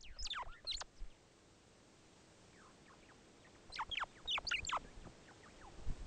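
White-browed sparrow weavers calling: two quick runs of sharp, chirpy notes that sweep down in pitch. The first run comes right at the start and the second about four seconds in, with a quiet gap between them.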